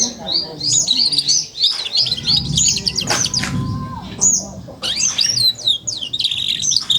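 Young canary, about four months old, twittering its practice subsong (ngeriwik): fast runs of short, high chirps and slurred notes, with a brief pause about two-thirds of the way through.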